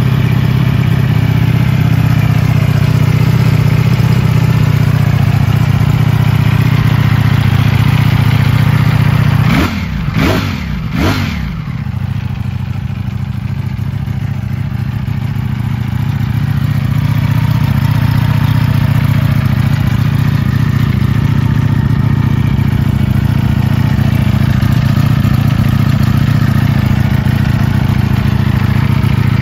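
Ducati Panigale V4 S Corse's V4 engine idling steadily, with three quick blips of the throttle about ten seconds in, the pitch jumping up and falling straight back before it settles to idle again.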